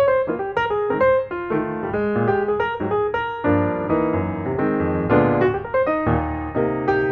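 Background piano music: a run of quick notes over fuller chords, each note struck and then fading.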